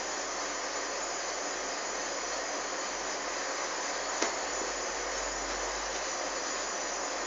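Steady, even hiss of running kitchen equipment, with a single light tap about four seconds in.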